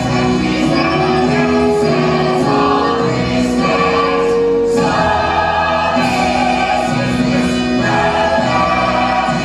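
Musical-theatre ensemble chorus singing in harmony over musical accompaniment. Long held notes step upward in pitch through the first half, then settle into lower sustained chords.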